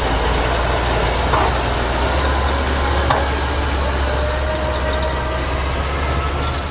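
Heavy engine running steadily: a deep low hum under a broad noise, with a faint whine that rises slowly in pitch in the second half, and a couple of brief knocks.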